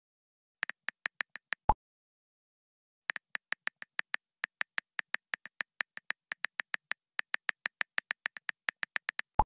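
Smartphone on-screen keyboard clicking as text is typed, about five or six key clicks a second: a short run, a pause, then a long steady run. A louder, lower pop marks each message being sent, once after the first run and again near the end.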